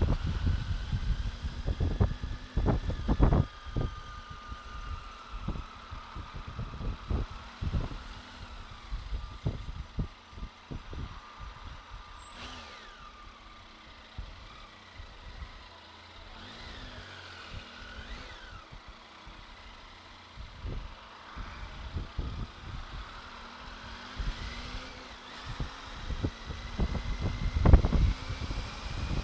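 Triumph Tiger 800XC's three-cylinder engine at low speed, its pitch rising and falling as it is throttled on and off through slow traffic. Wind buffets the microphone with low rumbling gusts, and nearby trucks and cars can be heard.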